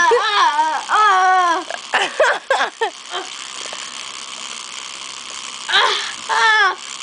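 A young child's wordless play noises: high, wavering cries and short bursts, a long breathy hiss from about three seconds in, then more cries near the end.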